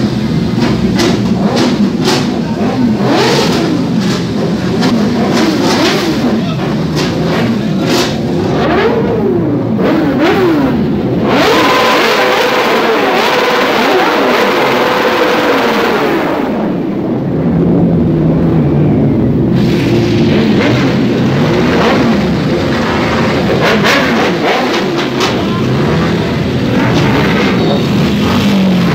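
Several superbike engines being revved as the bikes ride slowly past, the pitches of the different engines overlapping as they climb and fall again and again, with a steady held note for a few seconds near the middle.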